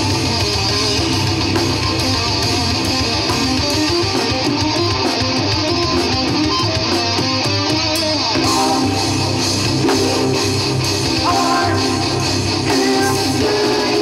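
Live band playing a guitar-driven instrumental passage with no singing.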